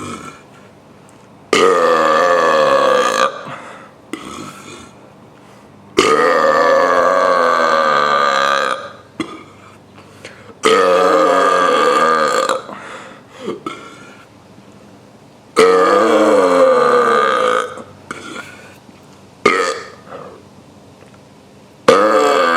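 A person burping on purpose: four long, loud, drawn-out burps, with a fifth beginning near the end, separated by short, quieter sounds.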